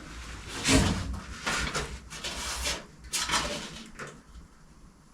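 Knocks and clatters of a steel rear wheel-arch tub being handled and tapped into position against a classic Mini's body shell: one sharper knock about a second in, then several lighter ones.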